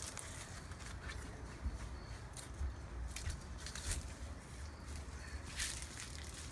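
Low rumble of wind and handling on a phone microphone, with a few soft taps.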